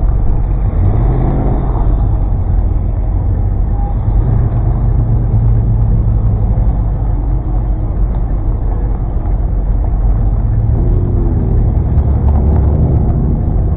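Classic car's engine running steadily at low speed while the car crawls along in a queue, heard up close as a loud low drone.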